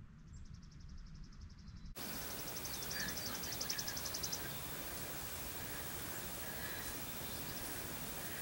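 A small songbird's rapid, high-pitched trill of evenly repeated notes, stopping a little over four seconds in. From about two seconds in, a steady background hiss lies under it.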